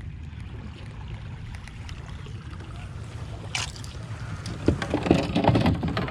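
Steady low rumble of wind and water around a fishing kayak, with a short hiss about halfway through and a cluster of knocks and clatter from gear handled against the hull near the end.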